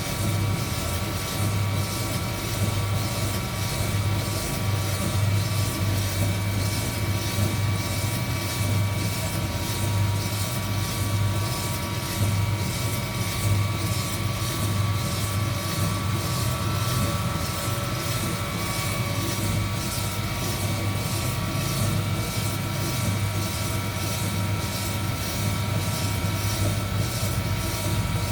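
Heat gun running steadily during a coffee roast: a constant blower whir with a deep hum and several steady whining tones, and a faint high hiss that pulses at an even rate.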